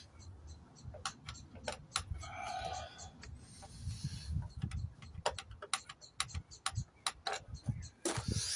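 Irregular sharp clicks and taps from tools and metal parts being handled while the wiper motor is worked free, with a couple of short rustles and low handling rumble.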